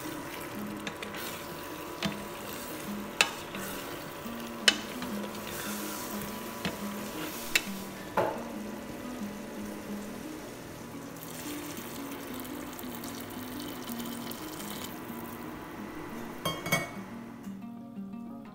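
Spiced vegetables sizzling as they fry in a stainless steel pot, stirred with a wooden spatula that knocks sharply against the pot a few times.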